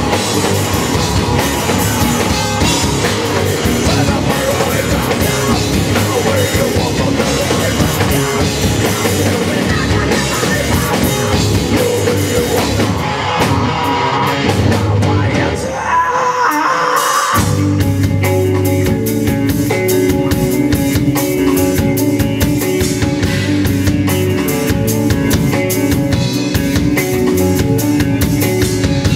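Live rock band playing loudly: drum kit and distorted electric guitars. About halfway through the band thins out for a moment with a single guitar line, then comes back in with the guitars holding long sustained chords over the drums.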